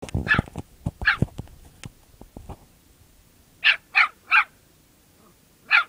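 A small dog barking in short sharp yaps: two, then a quick run of three, then one more near the end. Some low knocks sound in the first two seconds or so.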